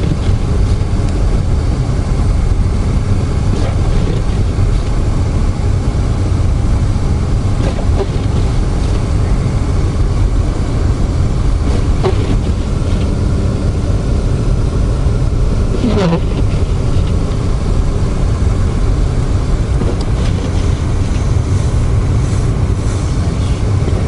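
Steady low rumble of a car driving on a snow-covered road, engine and tyre noise heard from inside the cabin.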